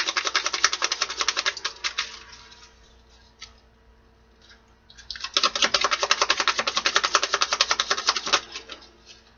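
A small oracle card deck being shuffled by hand: two runs of rapid card flicks, about ten a second, with a pause of a few seconds between them.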